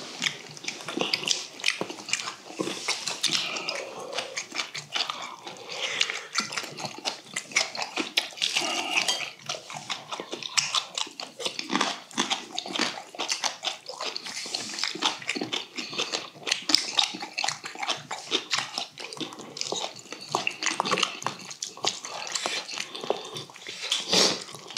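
Close-miked eating sounds: wet chewing, lip-smacking and slurping of braised yellow croaker stew and rice. Spoons and chopsticks click against stainless steel bowls throughout.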